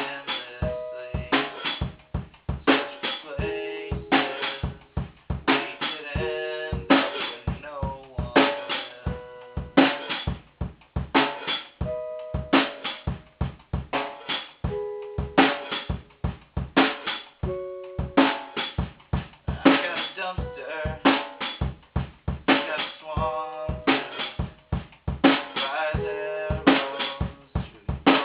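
One-man band playing an instrumental passage: a steady drum beat of kick and snare strikes, with short pitched instrument notes in between.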